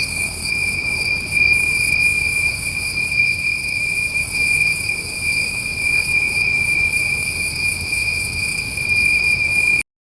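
Night insect chorus of a hot summer night: one steady, high, unbroken trill over a shimmering, higher-pitched chirring from many insects. It cuts off abruptly near the end.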